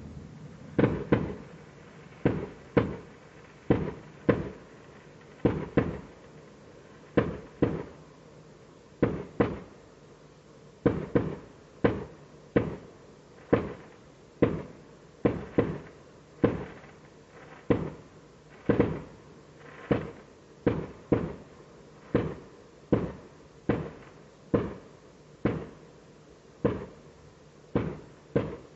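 Loud fireworks going off in a long barrage: sharp bangs about one or two a second at uneven spacing, often in pairs, each trailing off in a short echo.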